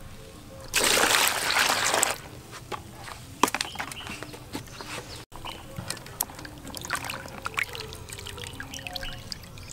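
Water pouring into a plastic bowl of canned green peas for about a second and a half, followed by small splashes and drips as hands swish and scoop the peas to rinse them.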